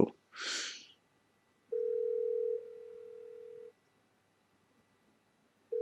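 Telephone ringing tone of an outgoing call waiting to be answered: one steady tone about two seconds long that drops in level partway through, then a pause, with the next ring starting at the very end. A short breathy hiss comes just before the first ring.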